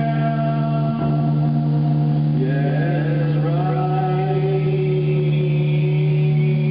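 Music: a steady low drone with long held tones above it. About halfway through, several of the upper pitches slide upward together and then settle into new held notes.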